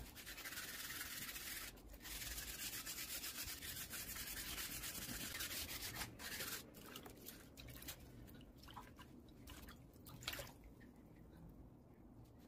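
220-grit sandpaper wet-sanding a curved white piece, rubbed back and forth in quick strokes. The scratching is dense and steady for about six seconds, with a short break near two seconds, then turns into slower, separate strokes.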